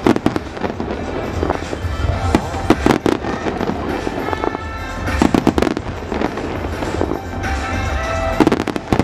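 Aerial fireworks bursting in quick clusters of sharp reports about every two to three seconds, over a music soundtrack.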